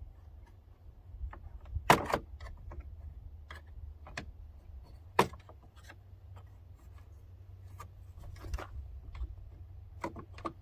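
Scattered clicks and knocks of a pickup truck's interior door trim being handled and worked loose, the loudest about two seconds in and again about five seconds in.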